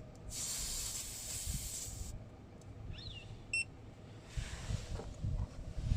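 Air hissing from a tire valve for about two seconds as a cap-type external tire-pressure sensor is screwed onto it, then a short high beep about three and a half seconds in.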